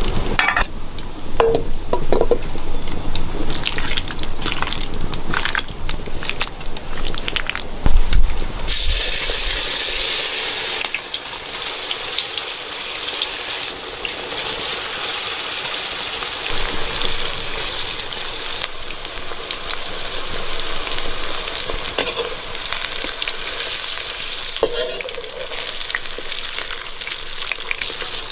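Knocks and clatter of steel bowls being handled, the loudest about eight seconds in, then a steady crackling sizzle of food frying in oil.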